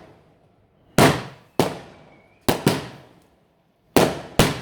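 Fireworks going off: six sharp bangs in quick succession, a pair close together near the middle and another pair near the end, each trailing off in a short echo.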